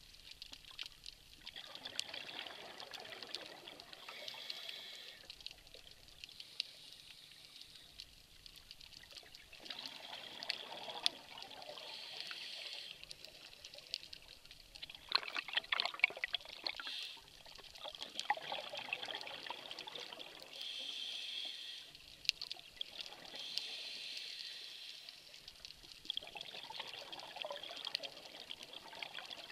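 Scuba breathing heard underwater: exhaled bubbles from a regulator gurgling up in bursts every four to five seconds.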